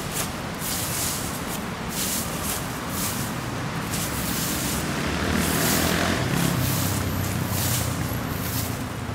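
Broom sweeping dry leaves across pavement: a brushing swish with each stroke, roughly one a second. A passing vehicle swells to its loudest about six seconds in.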